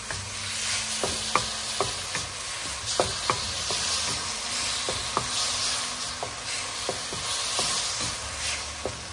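Beef and sauce sizzling in a hot wok while being stirred, with irregular sharp clicks of the stirring utensil against the wok. The cornstarch slurry has just gone in, so the sauce is thickening.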